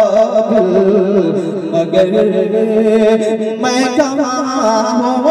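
A man singing a naat, an Urdu devotional poem, into a microphone, drawing out long wavering notes.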